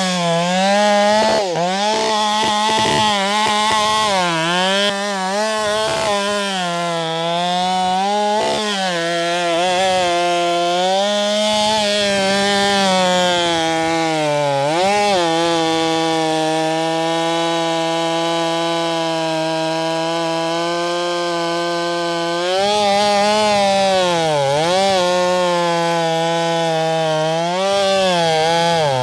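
Husqvarna 572 XP two-stroke chainsaw with a 24-inch bar running at full throttle while bucking a large pecan trunk. The engine pitch dips repeatedly as the chain loads up in the wood and recovers between dips. It settles to a steady, slightly lower pitch mid-cut, then climbs again near the end.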